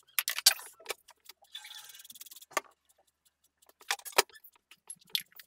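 Rapid, irregular clicks, knocks and clinks of food and kitchenware being handled at a counter, sped up in fast motion, with a short hiss about two seconds in.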